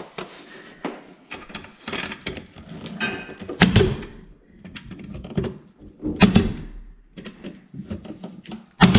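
Pneumatic pin nailer firing pin nails into a laminate stair nosing: a few sharp shots, each with a brief hiss of air, with smaller clicks and handling noise of the tool between them.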